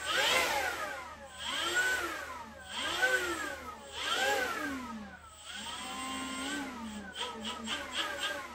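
Makita leaf blower running, its motor whine rising and falling in pitch about five times as the blower speeds up and eases off.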